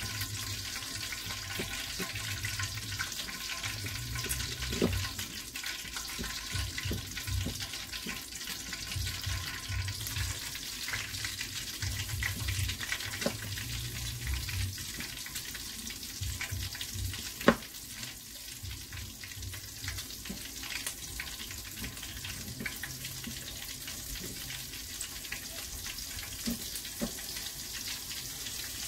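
Hot cooking oil sizzling steadily in a large pot on the stove, with soft dull handling thumps as chicken is coated in flour. One sharp click about two-thirds of the way through is the loudest sound.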